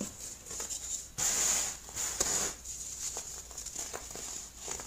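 Hands crushing and crumbling chunks of compressed baking soda, giving soft, crackly crunches with small clicks. A louder, fuller crunch comes between about one and two and a half seconds in.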